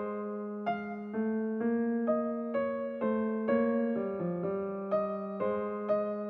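Slow, gentle solo piano music: single notes struck about twice a second, each fading, over a held low note.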